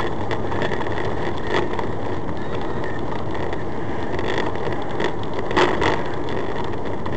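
Steady road and engine noise inside a moving vehicle's cabin, picked up by a dashboard-mounted dash cam, with a few brief knocks or rattles, the loudest two close together near the end.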